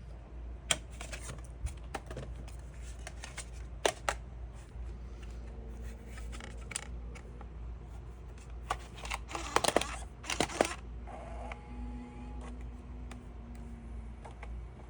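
Apple iBook's optical disc drive making odd mechanical clicks and ticks, scattered at first and then a quick run of clicks about ten seconds in, with faint steady whirring tones in between.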